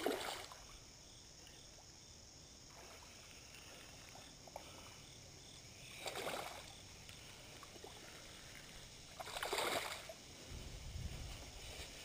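Three soft swishes of water around a small boat, near the start, about six seconds in and about nine and a half seconds in, over a faint steady hiss.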